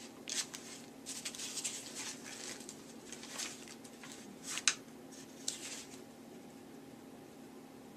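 Pages of a spiral-bound notebook being leafed through: a run of papery rustles and flicks, with one sharper snap of a page about four and a half seconds in. The rustling stops about six seconds in, leaving a faint steady hum.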